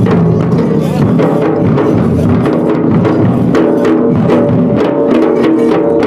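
Loud dance music with a steady drum beat and a melody, playing without a break.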